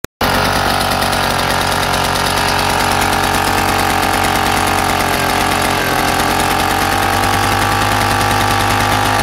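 An old Soviet 1 kW generator set's two-stroke engine running steadily with a rapid, even firing beat, on a fuel mixture the owner suspects is a little off.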